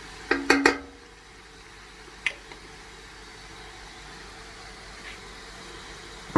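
A few quick metallic clinks with a short ringing tone in the first second, like a utensil knocking against a metal pot, then one more sharp click about two seconds in, over a steady low hum.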